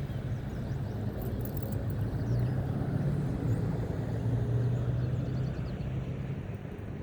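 Steady low engine drone of distant motor traffic, swelling slightly toward the middle and easing off near the end, with a few faint bird chirps over it.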